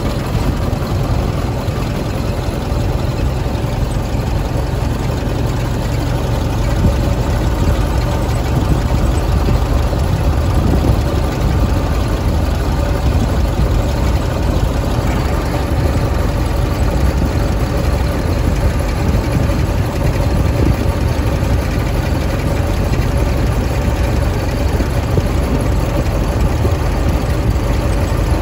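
1924 Ford Model T's four-cylinder engine running as the car is driven, a steady low rumble heard from the driver's seat.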